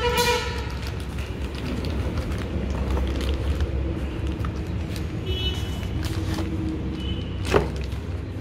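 Steady low rumble of an engine running nearby, with a single sharp knock near the end.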